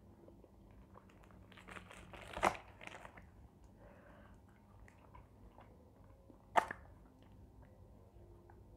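Paper food wrapper rustling and crinkling as it is unfolded by hand. The crinkling peaks in a sharp crackle about two and a half seconds in, and a single sharp click comes about six and a half seconds in.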